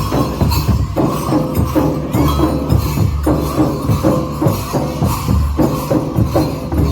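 Dance music with a steady, driving drum beat and strong bass.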